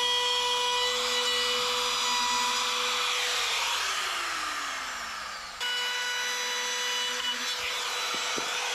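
Small handheld rotary tool fitted with a rotary rasp bit, running at a high steady whine while grinding out rotten wood, with a rasping scrape under it. Its pitch sags for a couple of seconds as the bit bites in, then jumps back up a little past halfway.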